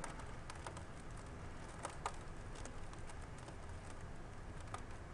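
Two dogs tussling over a sack in the snow: faint, scattered soft clicks and rustling over a low steady rumble.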